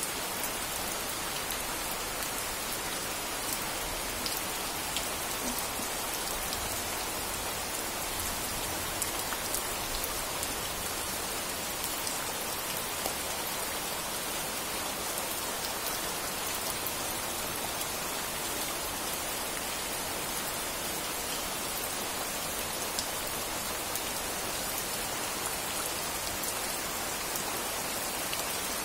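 Steady rain falling, an even hiss dense with fine drop ticks.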